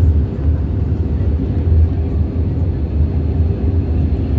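Airbus A320neo jet cabin noise heard from a window seat over the wing: the engines and airflow make a steady, loud low rumble with a faint hum above it.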